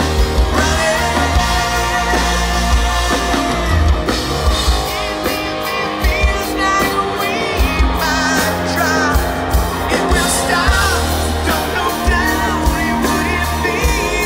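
Live rock band playing loudly through a concert PA: electric guitars and a drum kit, with a male lead singer singing over them.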